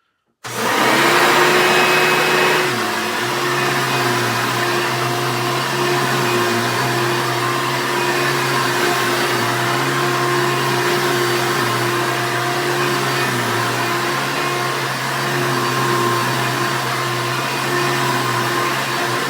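A 1994 Hoover Elite upright vacuum cleaner switched on about half a second in, its motor starting abruptly into a loud, steady whirring hum. About three seconds in its pitch and level settle slightly lower, and it keeps running steadily.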